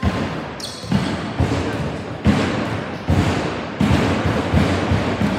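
A run of loud thuds echoing in a gymnasium, about one every half to one second at an uneven pace.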